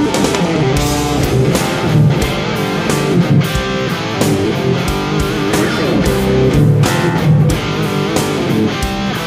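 Live instrumental rock band playing: distorted electric guitar lines over bass guitar and drums.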